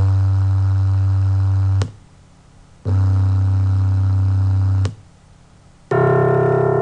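A synthesized pure tone near 98 Hz, the third peak of a piano's C1 line spectrum, plays steadily for about two seconds. After a short gap comes the sum of the first three sampled tones, which sounds almost the same because the lower two are weak. Near the end the recorded C1 note of a grand piano begins, richer and brighter.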